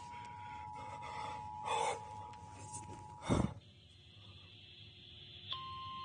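A small wooden retro FM radio plays a faint, steady two-note emergency alert tone while it is handled, with rustles and a bump about three seconds in, where the tone stops. Near the end a single higher steady alert tone begins.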